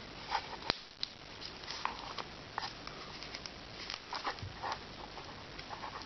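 Hands handling doll packaging: scattered short rustles and small clicks, with one sharp click about 0.7 s in.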